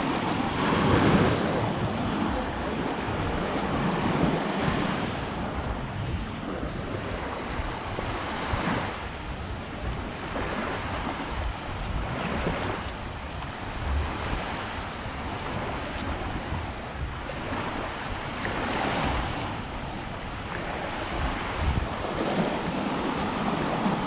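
Small sea waves breaking and washing up a sandy shore, the wash swelling every few seconds, with wind rumbling on the microphone.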